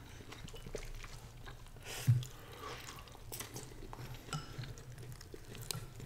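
Close-up eating sounds: chewing stir-fried egg noodles, with small clicks of chopsticks against glass bowls. A single soft thump about two seconds in is the loudest sound.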